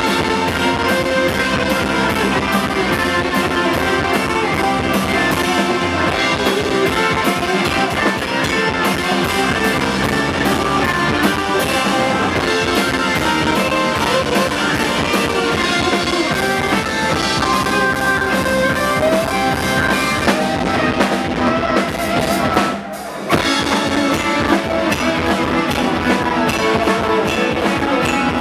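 Live rock band playing loud: electric guitars through Marshall amplifier stacks, organ and drum kit. Late on, the band stops for about half a second, then crashes back in together.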